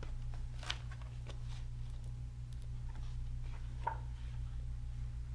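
Quiet room tone with a steady low hum, broken by a few soft rustles and light taps as a hardcover picture book is handled and turned over.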